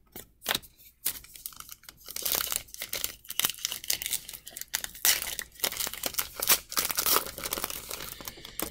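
Foil wrapper of a 2019 Panini Legacy football card pack being torn open and crinkled in the hands: a run of crackling rustles, after a few light clicks in the first second.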